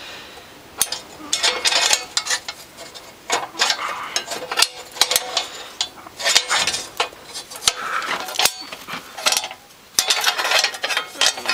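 Irregular metallic clinks and scrapes of a small battery hold-down clamp and its spring being fitted back in a tractor's battery compartment.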